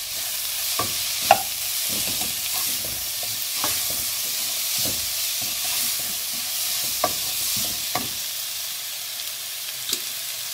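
Onions, green capsicum and spring onions sizzling as they are stir-fried in a non-stick wok, with a steady hiss. A metal spatula scrapes and knocks against the pan now and then, most sharply about a second in.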